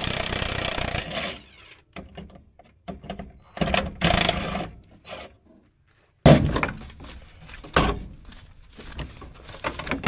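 Hand work on a truck's pedal assembly: scattered metal clicks and knocks between two bursts of scraping, rattling noise, with one sharp loud knock about six seconds in.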